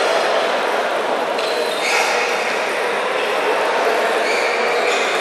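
Steady crowd chatter filling a large hall, with a few short high-pitched tones rising above it about a second and a half in, around two seconds in, and again near the end.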